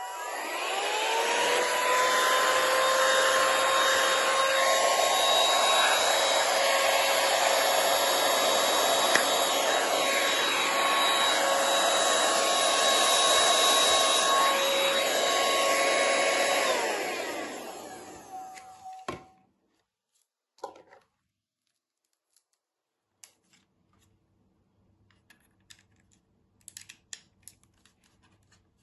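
Handheld car vacuum cleaner switched on: its small motor rises in pitch to full speed over about two seconds, then runs steadily with a high whine. After about seventeen seconds it is switched off and spins down with a click, and a few faint handling clicks follow near the end.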